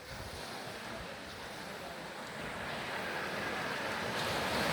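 Ocean surf washing onto a beach, swelling louder through the second half as a wave comes in, with some wind on the microphone.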